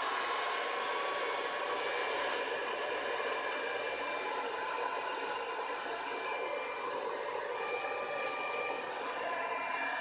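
Handheld hair dryer running steadily, blowing air onto a plastic water bottle wrapped with hair: an even rush of air with a faint steady whine.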